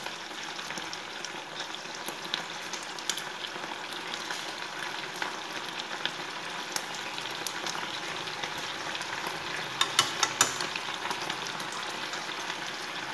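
Mẻ (Vietnamese fermented rice paste) sizzling in oil in a small frying pan over a gas flame: a steady frying hiss with scattered pops, and a quick cluster of louder spatters about ten seconds in.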